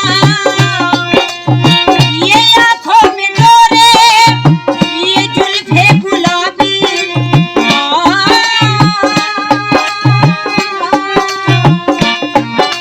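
Instrumental interlude of a folk ghazal accompaniment: a steady drum beat, about two strokes a second, under a held, wavering melodic line.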